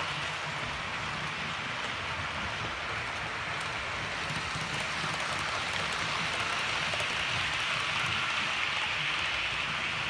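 Model trains running on the track: a steady rolling hiss of wheels on rail over a low motor hum, with a few light clicks about four seconds in. It grows a little louder as a train passes close.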